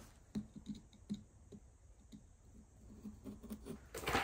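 A hand tool scraping and clicking inside a pumpkin as it is dug out and hollowed, in light, irregular strokes, with a louder scrape near the end.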